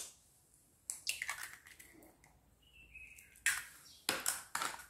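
A hen's egg being broken open over a steel mixing bowl: a click and a brief crunching of shell about a second in, then a few faint sharp clicks later.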